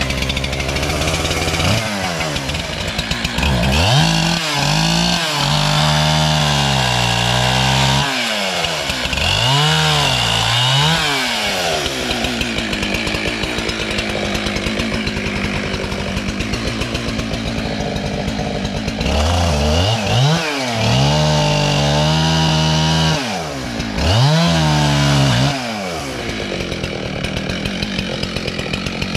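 Two-stroke chainsaw revving up and falling back again and again in a few bursts, with stretches of steadier, lower running in the middle and near the end.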